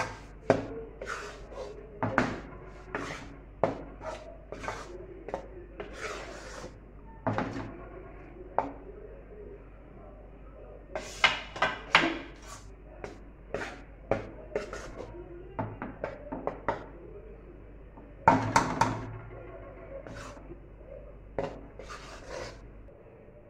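A spoon scraping and knocking against a metal pan while stirring a thick paste of chickpea flour roasting in ghee, in irregular strokes about two a second.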